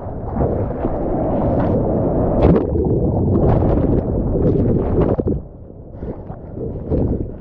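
Surf water rushing and splashing close up, a heavy wash that drops away sharply about five seconds in, then lighter, choppier splashes.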